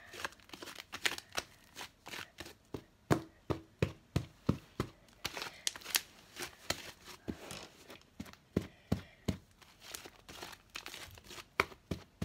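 Fluffy slime with shaving cream just added, being worked by hand: irregular wet pops and clicks, a few a second, as air pockets squeeze out.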